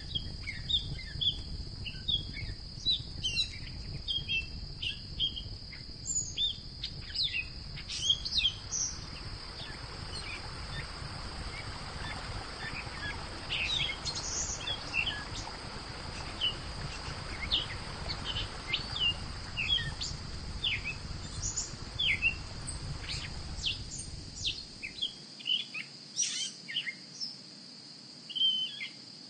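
Birds chirping in many short, quick calls, over a steady high-pitched hum. A soft hiss swells through the middle, and a low rumble cuts off near the end.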